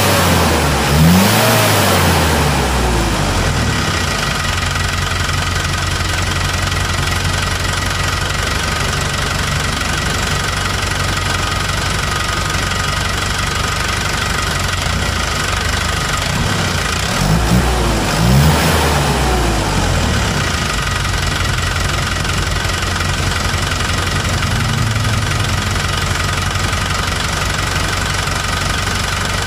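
Hino Dutro truck's diesel engine idling with a steady clatter, blipped up in revs briefly near the start and twice more about two-thirds of the way through. Its injection pump and idle have just been set.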